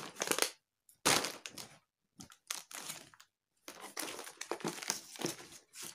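Plastic grocery bag and packaging crinkling and rustling as items are handled, in several bursts with short pauses between them.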